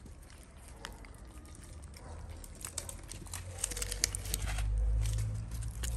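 A cat eating wet cat food close up: quick wet chewing and smacking clicks, growing denser in the second half, with a low rumble building near the end.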